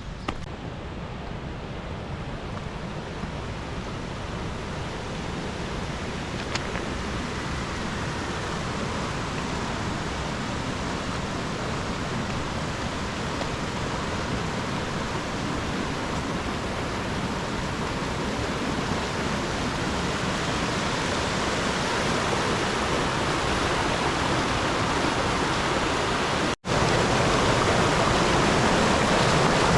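Steady rushing of water, growing gradually louder, cut by a brief dropout about 26 seconds in, after which it is louder still.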